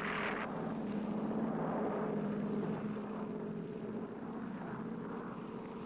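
Twin-engine propeller aircraft in flight: a steady, even drone from its piston engines, easing off slightly after about three seconds.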